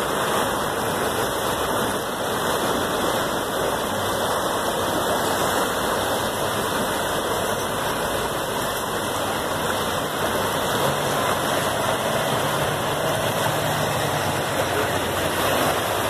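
Fast, flooded river water rushing and churning beneath a bridge, a steady, loud wash of noise. A low engine hum sits underneath, stronger from about two-thirds of the way in.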